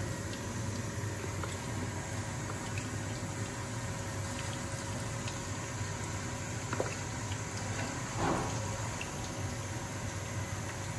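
Chicken wings frying in hot mustard oil in a pan, a steady sizzle. Steel tongs click against the pan about seven seconds in, with a short scrape a second later.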